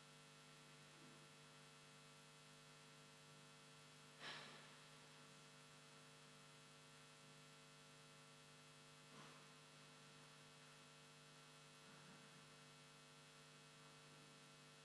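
Near silence with a steady low hum, broken by a faint short rustle-like noise about four seconds in and a fainter one about nine seconds in.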